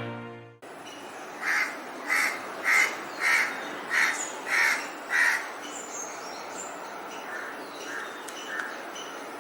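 Crows cawing: a run of seven loud caws about 0.6 s apart, then fainter caws, over a steady outdoor hiss. A music intro cuts off about half a second in.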